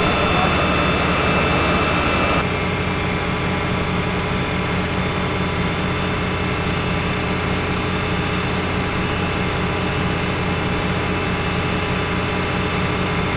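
The WABI-K 300 knuckle-boom crane's engine and hydraulics run steadily under a 125-tonne test load, a low drone with a high whine over it. About two seconds in the sound drops a little and the whine weakens.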